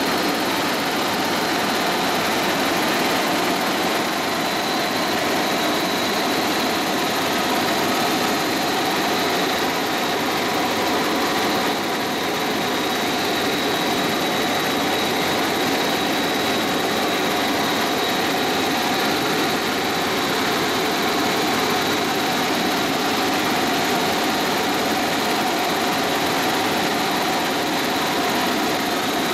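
Helicopter engine and rotors running steadily in cruising flight, heard inside the cabin as a loud, even roar with a faint steady high whine.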